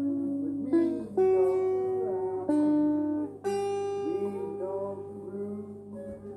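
Electric guitar played slowly in single notes: four notes are picked in the first three and a half seconds, each left to ring and fade. The last note rings out with a wavering pitch over a steady low hum.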